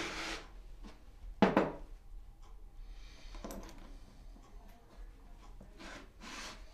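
A steel punch in its holder is rubbed across a slate polishing stone, giving a few gritty scraping strokes, while its face is brought to a high polish. About one and a half seconds in there is one sharp metallic clack.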